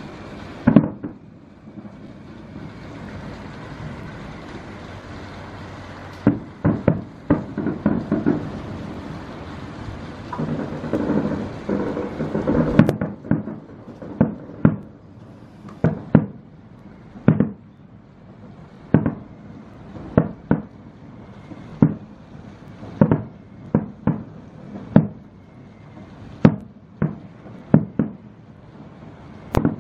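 Distant aerial firework shells bursting: a few bangs about six seconds in, a dense cluster of booms around eleven to thirteen seconds, then single bangs about one a second.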